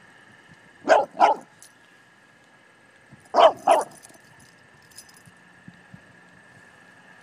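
English bulldog barking: two quick barks about a second in, then two more about three and a half seconds in.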